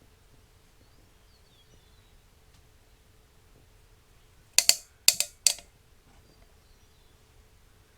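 Four sharp clacks in quick succession, all within about a second, over a quiet background with faint bird chirps.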